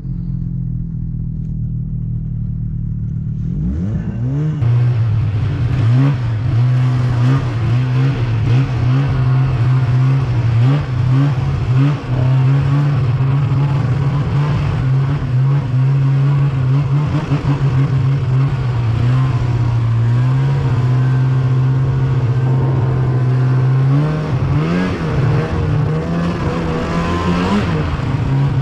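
Snowmobile engine idling, then revving up about four seconds in and running at a steady higher pitch as the sled moves off through the snow. Near the end the pitch rises and falls a few times with the throttle.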